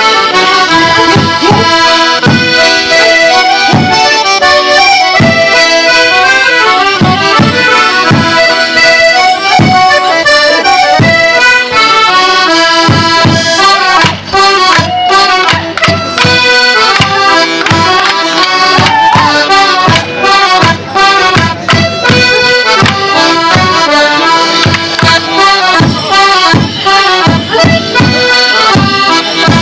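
Border Morris dance tune on accordion-type squeezeboxes, driven by a steady drum beat.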